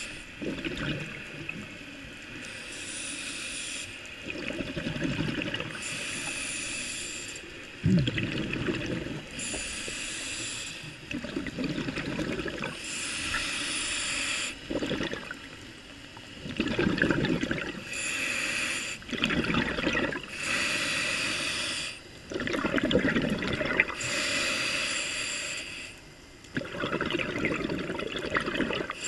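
Scuba diver breathing through a regulator underwater: a hissing inhale alternating with a low bubbling exhale, about one breath every four seconds.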